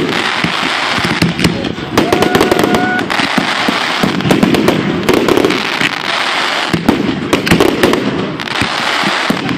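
Close-range aerial fireworks display: a dense, continuous crackle of many small bursts, with heavier bangs among them as shells break overhead.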